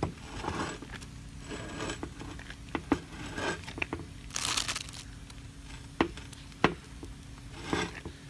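Clear plastic wrap crinkling and nitrile-gloved hands rubbing as grease is smeared over the O-ring on a plug valve retainer. Scattered rustles with a few sharp clicks, and a louder crinkle about halfway through.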